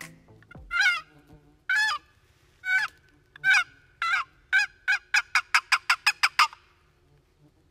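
Wooden box turkey call scraped by hand, sounding a series of hen-turkey yelps: about fourteen notes, spaced out at first and quickening into a fast run before stopping.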